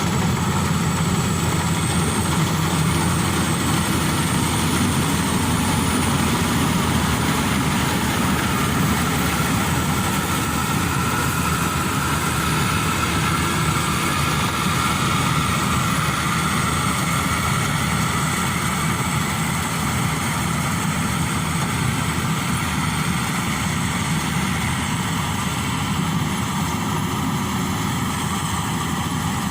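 Maxxi Bimo Evo Xtreme combine harvester running steadily while harvesting rice: the engine and harvesting machinery at an even, unchanging pace.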